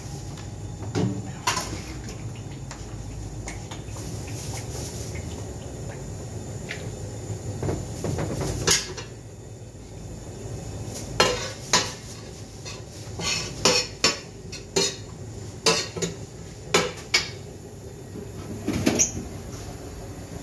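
A metal utensil clanking and scraping against a large steel tantuni pan as the cook turns the meat. The sharp metallic clacks are sparse at first and come thick and fast in the second half, over a steady low hum.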